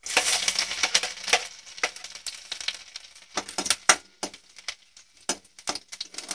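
Chopped garlic hitting hot mustard oil in a kadhai, bursting into a loud sizzle at once that settles to a softer sizzle after a second or two. Sharp clicks and scrapes of a spatula against the pan run throughout as the garlic is stirred.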